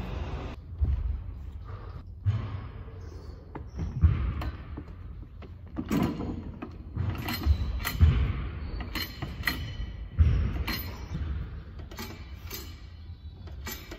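Gym weight-stack leg curl machine in use: irregular thuds and metallic clinks, about one every second or two, some ringing briefly.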